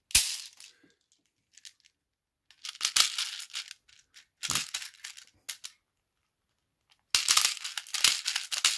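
Plastic airsoft BBs rattling and clicking through a handheld speed loader as it feeds them into a metal double-column pistol magazine, in four separate rattly bursts, the last the longest.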